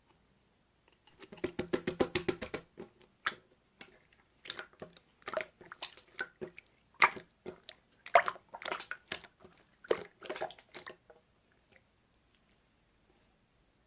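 Slime being squished and pressed by hand, making sticky, wet clicks and pops. A fast run of clicks comes first, then slower, scattered squelches and crackles that die away near the end.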